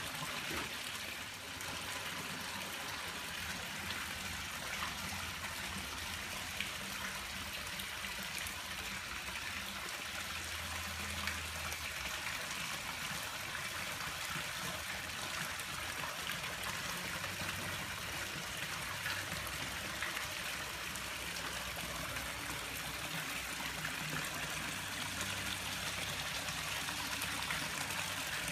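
Steady trickling of running water in a swimming pool, an even splashing hiss with no breaks.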